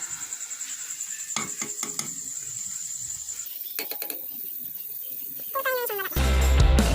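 Metal utensil clicking and scraping on a can and pan as tuna is put into the hot pan, with a few short clicks in two clusters, over a faint high-pitched tone that pulses several times a second. Loud background music comes in near the end.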